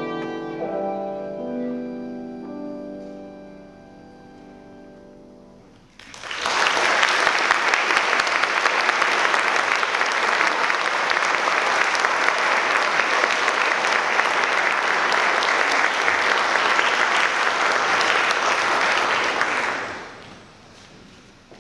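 Violin and piano hold the closing notes of a piece, fading away over several seconds. About six seconds in, an audience starts applauding all at once; the clapping stays steady for about fourteen seconds and dies away near the end.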